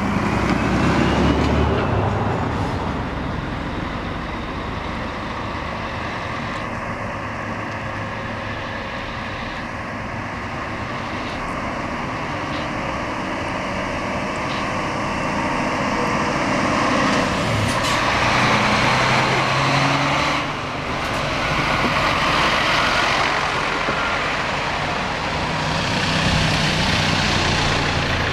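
Scania K400 coach's rear-mounted diesel engine pulling away and driving past. The engine note rises and drops several times, and it is loudest about two-thirds through and again near the end. A brief rising whistle comes about a second in.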